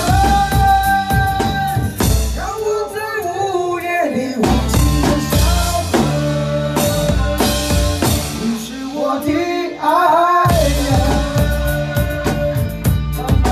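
Acoustic drum kit played live along to a Chinese pop song with a sung vocal and full band backing. The drums briefly thin out twice under held vocal phrases, with a cymbal crash about ten and a half seconds in.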